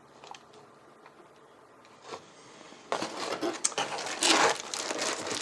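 After a quiet start, plastic packaging rustles and crinkles with small clicks and clatter from about three seconds in, as bagged mounting hardware for a liquid CPU cooler is handled and unpacked.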